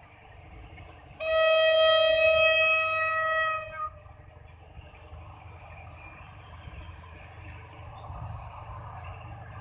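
Locomotive horn sounding one long steady blast of about two and a half seconds, starting about a second in. A low steady rumble follows.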